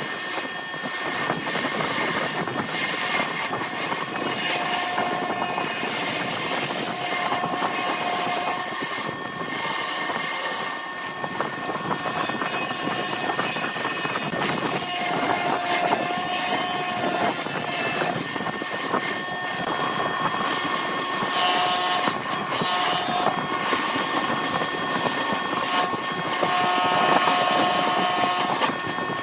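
Wood lathe running with a steady whirring rush as a blank of bamboo chopsticks set in epoxy resin is turned, with short faint tones coming and going over it.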